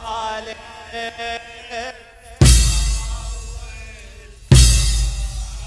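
A chanted Muharram lament line trails off, then two heavy beats about two seconds apart. Each beat is a deep drum thump together with the bright metallic crash of many mourners' chains struck in unison in zanjeel (chain-flagellation) mourning, and the crash rings on between beats.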